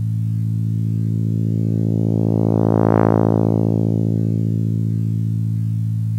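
Computer-synthesized tone made with a discrete summation formula (110 Hz carrier, 55 Hz modulation frequency, upper sidebands only, so the 55 Hz fundamental is missing): a steady low pitch whose timbre brightens as upper partials swell to a peak about three seconds in, then mellows again. Faint aliasing is audible in the highs.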